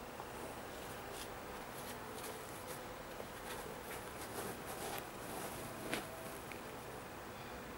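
Faint rustling and small clicks as fingers handle a sneaker and pull back its tongue, over a steady background hiss. The sharpest click comes about six seconds in.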